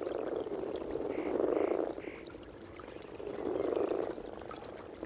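Chorus of many frogs croaking together at their spawning site, a breeding chorus. It is a dense, low grating that swells up twice, with three short higher notes about a second in.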